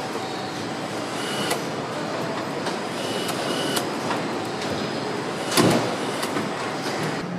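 Car assembly-line machinery noise: a steady mechanical din with scattered clicks and short high beeps, and a louder clank about five and a half seconds in.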